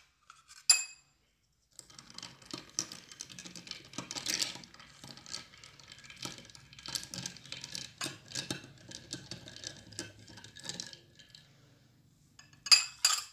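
A metal spoon clinking and scraping against a tall drinking glass of orange juice and soda as the drink is stirred: a fast, irregular run of light clinks lasting several seconds, then a sharper single clink near the end.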